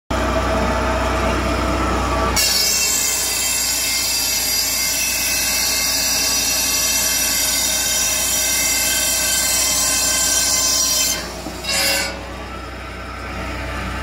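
Firewood processor running with a low hum; about two seconds in its chainsaw bar bites into a log and cuts with a loud, high-pitched whine. The cut ends about 11 seconds in with a brief rising flare, and the machine drops back to its lower hum.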